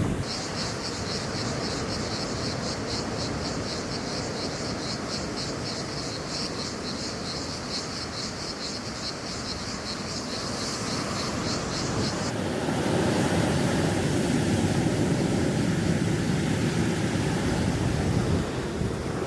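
Insects chirping in a high, fast, even pulse over a low background haze. The chirping cuts off abruptly about two-thirds of the way through, and a louder low, steady rumble takes over.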